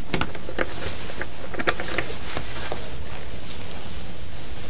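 Go stones clicking: a dozen or so scattered sharp clicks of stones against one another and the bowl, the loudest right at the start and about a second and a half in, over a steady tape hiss.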